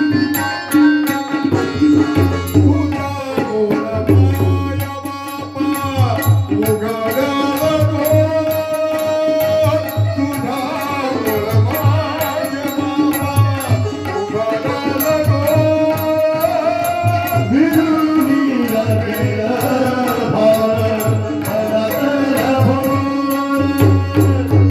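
Music from a Marathi devotional song about Vitthal: a steady tabla beat under a flowing melody.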